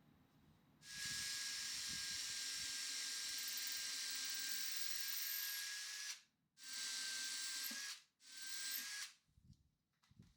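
Pressurized hissing spray, like an aerosol can or an air nozzle, in three bursts: a long one of about five seconds, then two shorter ones. A faint steady whistle runs through the hiss.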